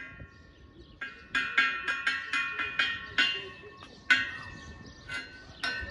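Chimes ringing: about a dozen clear, irregularly spaced strikes, each sounding the same few fixed notes that ring on after it. The strikes come thickest between about one and three and a half seconds in.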